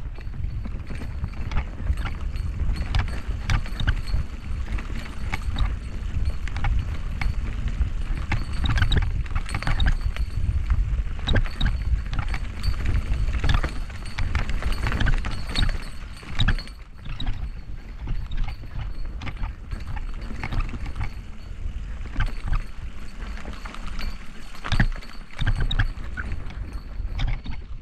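Mountain bike rolling fast down a dirt singletrack: tyres on dirt and the bike's chain and frame rattling, with many quick clicks and knocks over the bumps, over a steady low rumble.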